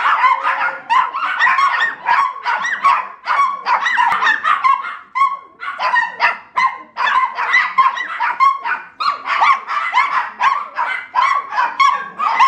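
Several small dogs barking and yipping excitedly in a rapid, overlapping chorus with no pause, greeting their owner as he comes home.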